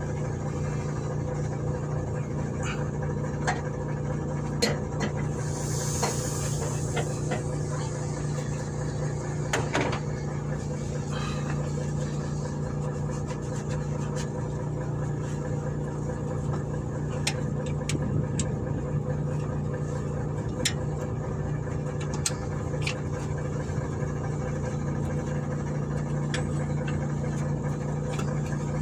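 Steady low hum of an idling diesel engine, unchanged throughout, with scattered short clicks and taps of tools working near the fuel filter.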